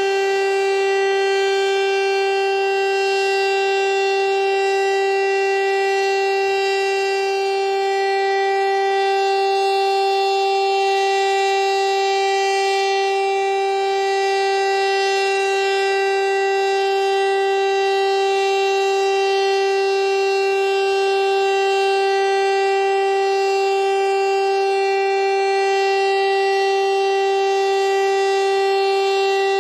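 Civil defense siren sounding a loud, steady tone that holds one pitch without rising or falling, rich in overtones.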